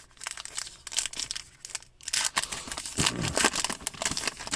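Rustling and crinkling of baseball trading cards and a foil pack wrapper being handled. The sound is a run of short, irregular scrapes and crackles.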